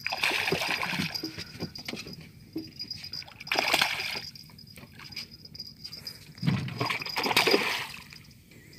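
Hooked fish splashing at the water surface in three bursts as it is reeled in close to the boat.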